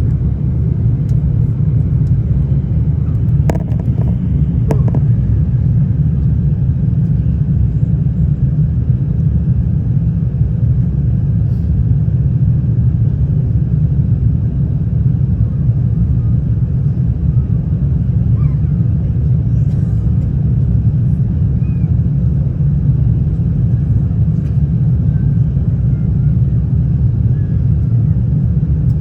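Steady low rumble of an Airbus A350 in flight, a constant roar of airflow and engines, with a couple of short clicks about four seconds in.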